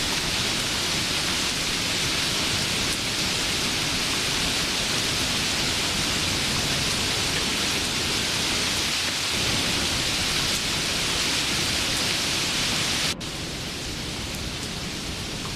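Steady rain, a dense even hiss. About thirteen seconds in it cuts abruptly to a quieter, softer rain, a splice between two rain recordings.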